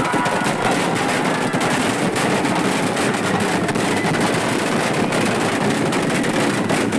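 Firecrackers packed inside a burning effigy going off in a rapid, unbroken rattle of bangs and crackles.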